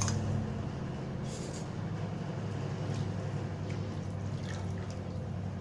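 Soaked grated coconut being squeezed by hand and moved into a mixer jar: a few short wet squishes and drips, spread over several seconds, above a steady low hum.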